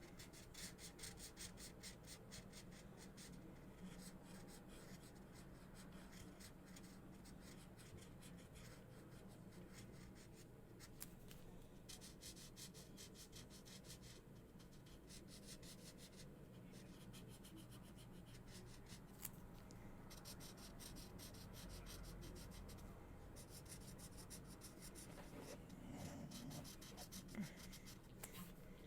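Faint felt-tip marker scratching across paper in rapid back-and-forth coloring strokes, with a few short pauses between runs of strokes.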